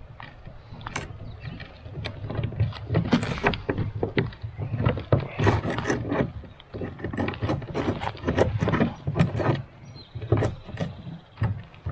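Irregular clicks, knocks and rattles of a camera extension arm being handled and fitted into the gear track of a plastic fishing kayak.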